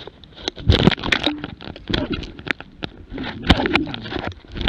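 Brush and blueberry twigs rustling and scraping over a camera mounted on a running jämthund (Swedish elkhound), with irregular knocks and thuds as the dog's strides jolt the camera housing.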